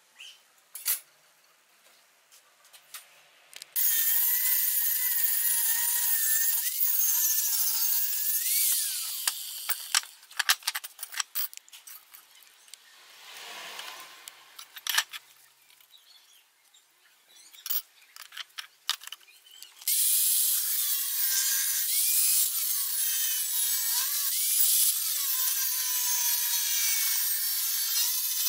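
Angle grinder with a cut-off disc cutting steel plate, running in two long stretches, about four seconds in and again from about twenty seconds, with a steady whine over the grinding. Between them come short clicks and knocks of metal pieces being handled.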